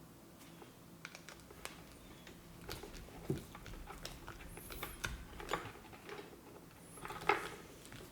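Light, scattered clicks and taps of small plug parts and a hand tool being handled while an electric plug is wired, with a few louder clicks about three, five and a half and seven seconds in.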